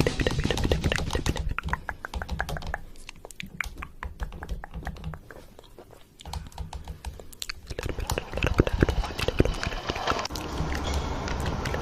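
A rapid run of sharp clicks and clatter that thins out and dips nearly to quiet about six seconds in, then picks up again with a low hum underneath.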